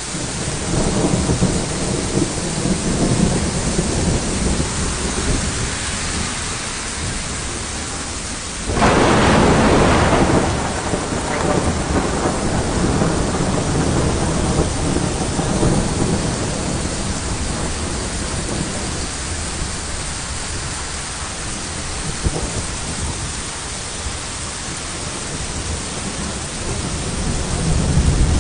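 Thunderstorm: steady rain with low rumbling thunder throughout, and a sudden loud thunderclap about nine seconds in that dies away over a couple of seconds.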